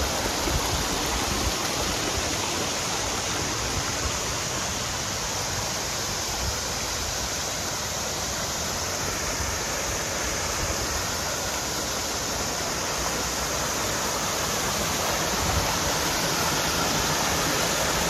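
Fast-flowing mountain stream water rushing and cascading: a steady, even rush of water with no breaks.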